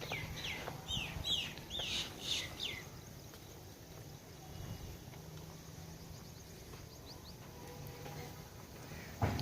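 A bird calling a quick series of downward-sliding chirps, about three a second, for the first three seconds, then only faint chirps. A short thump near the end.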